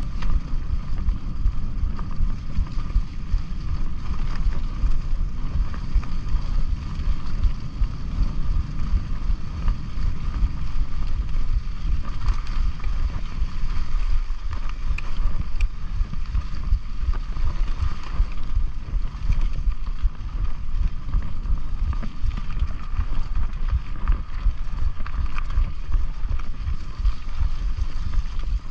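Wind buffeting the microphone of a mountain bike ride, a continuous gusty rumble, with the faint rattle and hum of the bike rolling over the dirt trail.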